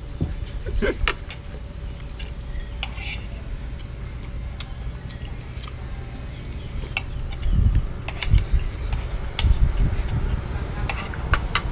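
Metal spoons and forks clinking and scraping on plates during a meal: scattered light clicks, about ten in all, over a low steady rumble.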